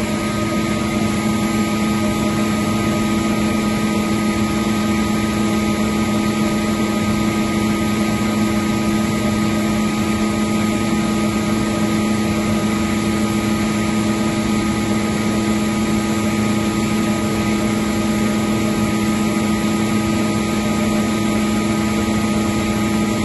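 Atlas Copco GA75 oil-injected electric rotary screw air compressor running steadily: an even drone with two strong held pitches over a broad hiss.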